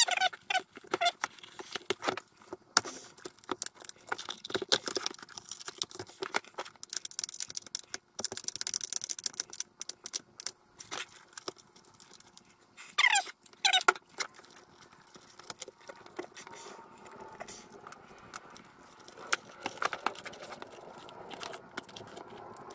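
Small metal parts clicking, rattling and scraping as cable ring terminals are handled and fitted onto a battery terminal bolt inside a plastic jump-starter case, with a brief squeak a little past halfway.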